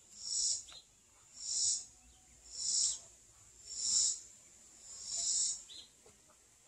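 Rhythmic hand rubbing on a truck's aluminum wheel rim: five hissing strokes, about one every second and a bit, as the rim is worked over with a hand pad to sand and polish it.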